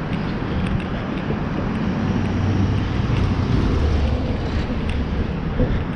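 Steady road traffic noise, with a deeper rumble that grows louder from about two and a half to five seconds in, and wind on the microphone.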